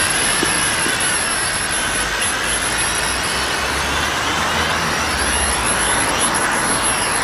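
Preo CX-003 toy quadcopter's small electric motors and propellers whining in flight, the pitch rising and falling as it is flown.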